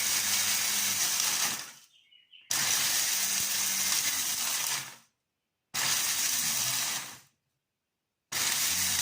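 Small electric grinder grinding dried hot red peppers, run in four pulses of one to three seconds with short pauses between, each a motor hum under a loud hissing whir.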